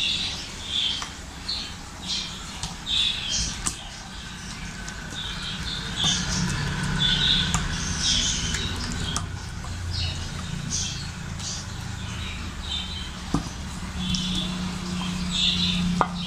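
Wet squishing and squelching of a hand kneading thick masala batter into chicken drumettes, in irregular short squelches about once or twice a second.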